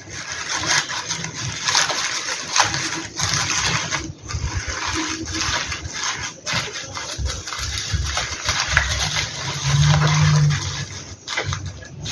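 Tissue paper rustling and crinkling in quick crackles as hands crumple it and press it down into a small clear box.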